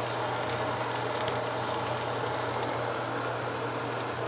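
Egg-dipped bread for French toast sizzling in a frying pan: a steady hiss with scattered sharp crackles, one louder pop about a second in. A steady low hum runs underneath.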